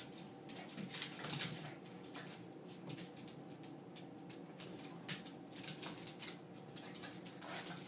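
Two small dogs play-fighting on a hardwood floor: claws clicking and scrabbling on the boards and paws pattering in quick, irregular scuffles, busiest about a second in.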